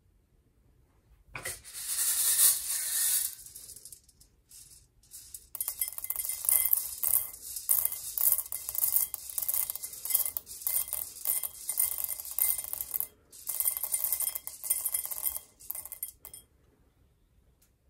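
Roasted coffee beans poured from a perforated stainless-steel bowl into a glass tumbler, rattling in the metal and clinking into the glass. A short pour starts about a second and a half in, then a longer one with brief pauses stops near the end.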